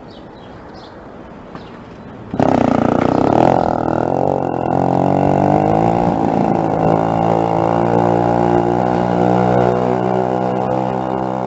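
Motorized bicycle's small engine cutting in abruptly about two seconds in and then running steadily under way, its pitch dipping slightly before holding; before it cuts in there is only low road and wind noise.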